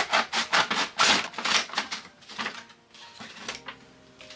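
Scissors cutting through tough packaging in quick repeated snips, about four or five a second, stopping about two and a half seconds in. The cutting is hard going.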